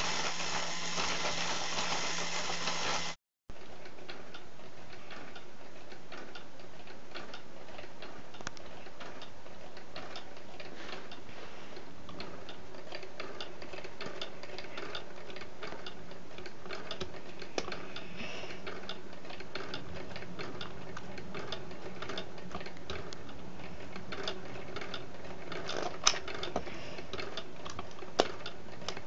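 Model stationary engines built from K'nex, Lego and Duplo running: a steady clatter of light plastic clicks and ticks from the moving parts, with a low steady hum under it for the first few seconds. The sound drops out briefly about three seconds in, and there are two louder clicks near the end.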